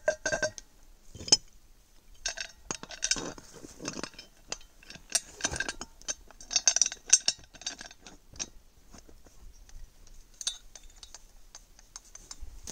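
Steel campfire pressure cooker having its lid fitted and its crossbar clamp tightened down: a run of metallic clinks and scrapes, thinning out after about eight seconds.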